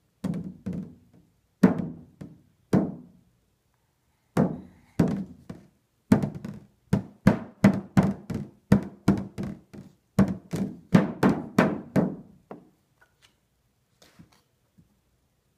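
A large round hand drum beaten with a stick by a baby, each stroke a low thud that rings briefly. A few separate beats at first, a short pause, then a run of quicker, uneven beats that stops about three quarters of the way through, leaving only a few faint taps.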